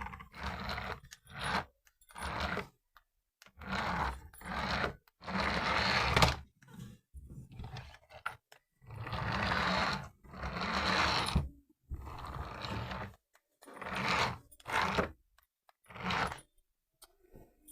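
Toy RC car's small electric motor and plastic gears whirring in about ten short bursts of half a second to two and a half seconds, each stopping dead between bursts.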